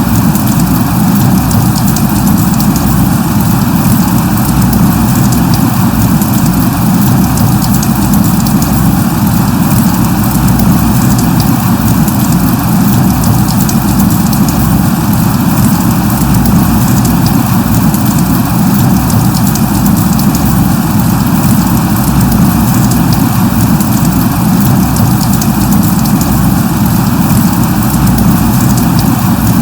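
Rain falling steadily: a dense, even wash of noise with no single drops standing out and a deep rumble underneath.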